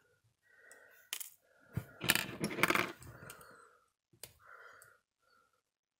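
Crushed aluminium coffee capsule and metal pliers clinking in the hands: a few sharp clicks, then about a second of jingly metallic rattling about two seconds in, and one more click near the end.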